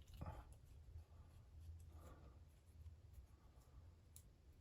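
Near silence: faint handling noise from a screwdriver working on the Tillotson carburettor's cover, over a low hum, with one light click near the end.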